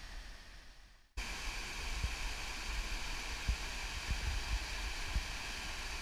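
Rushing white water of a rocky waterfall cascade, a steady hiss. It fades down over the first second, drops out, then comes back in suddenly at full level, with low thumps on the microphone underneath.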